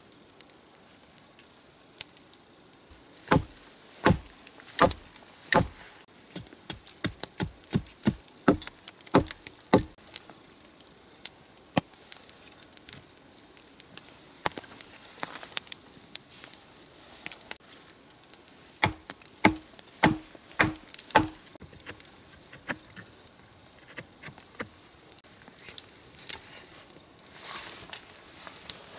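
A hand blade chopping at dead branches: sharp strikes, about one every second in a run a few seconds in, then a quicker run of about two a second around twenty seconds in, with lighter cracks between.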